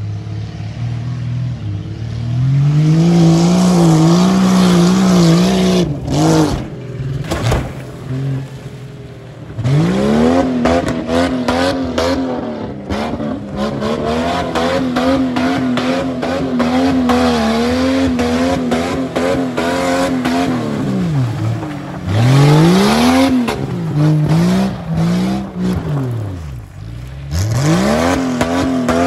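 Beater Jeep Grand Cherokee's engine revving hard and held high, its pitch repeatedly dropping and climbing again as the wheels spin and the Jeep slides through tight circles in mud and gravel. A stretch of rapid crackling clicks comes about a quarter of the way in.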